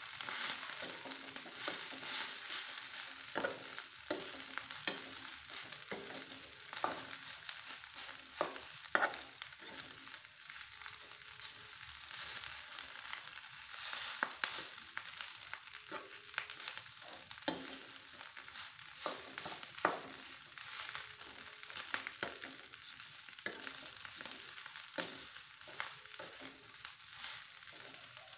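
Fried rice sizzling in a frying pan over a gas flame as a spatula stirs and turns it, with irregular scrapes and knocks of the spatula against the pan over the steady sizzle.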